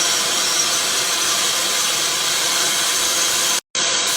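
Small fire burning with a steady hiss and no distinct crackles, cut off by a brief dropout near the end.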